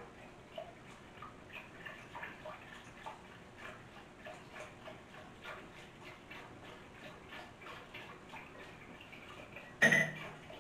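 Silicone whisk stirring lye into water in a glass bowl, making light ticks a few times a second against the glass, with one louder ringing clink near the end.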